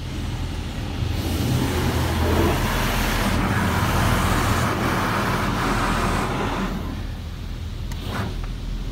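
Spray jets of a Washworld High Velocity automatic car wash hitting the car's body and windows, heard from inside the cabin as a hiss over a steady low hum. The spray swells about a second in and eases off around seven seconds in.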